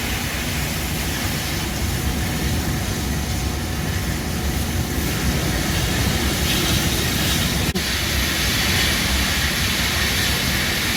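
Propane-fuelled bushfire simulator running at full burn: a steady, loud rush of gas flames, deep and hissing. There is a momentary break about eight seconds in.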